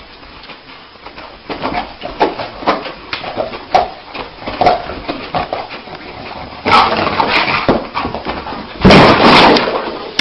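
A sleeping dog whimpering and yelping in a bad dream, a short cry every half second or so. Louder, longer noise follows in the last few seconds as it scrambles to its feet, loudest about nine seconds in.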